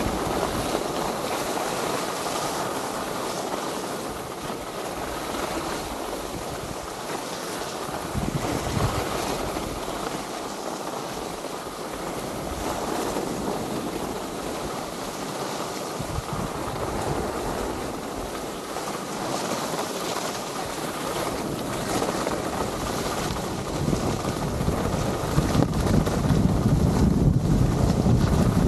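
Skis sliding and scraping over packed, groomed snow, with wind buffeting the microphone. The low wind rumble grows louder near the end as the skier speeds up.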